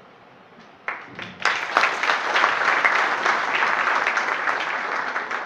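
Audience applauding: a few scattered claps about a second in, then full applause from many hands that thins out near the end.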